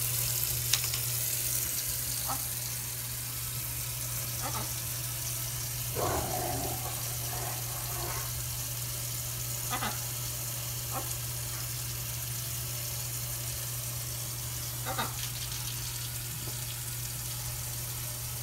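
Kitchen faucet running a steady stream into a stainless steel sink: an even hiss, with a few short sharp sounds over it, the biggest about six seconds in.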